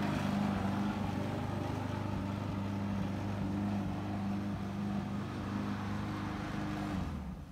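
Gas walk-behind lawn mower running steadily as it is pushed across grass, its sound falling away near the end.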